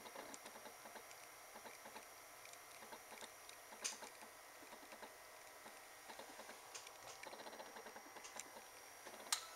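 Near silence: faint hiss with small scattered clicks and ticks, a slightly louder click about four seconds in and another near the end.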